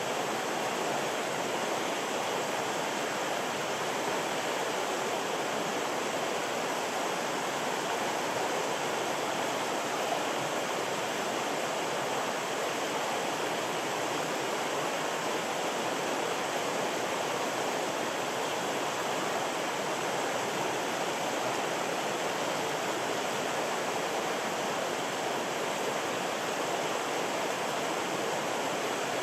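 Mountain stream rushing steadily, an even wash of water noise.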